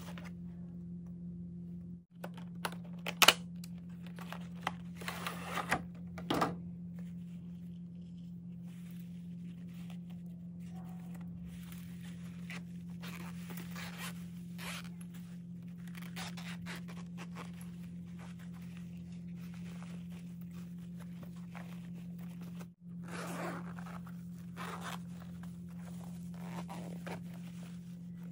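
Handling noise as a fabric pencil case is unpacked and opened: plastic packaging crinkling, a few sharp clicks, the loudest about three seconds in, then repeated rustling and a zipper being drawn open, over a steady low hum.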